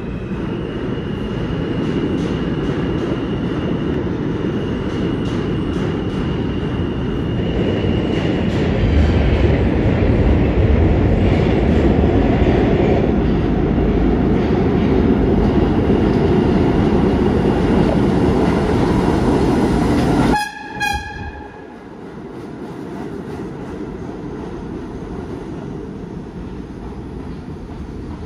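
R32 subway train pulling into an underground station: a loud, dense rumble that builds as it approaches, with a steady high whine in the first several seconds. About two-thirds through the sound drops off suddenly with a brief ringing tone, leaving a quieter steady rolling noise.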